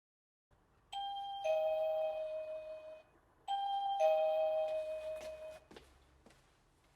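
Doorbell chiming ding-dong twice, a higher note then a lower one each time, the notes ringing on for about a second; a few faint clicks follow near the end.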